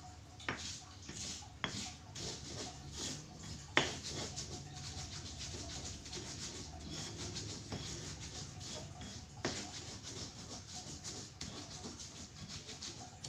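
Kitchen cooking sounds: steady rubbing and scraping, broken by a few sharp clicks, the loudest about four seconds in.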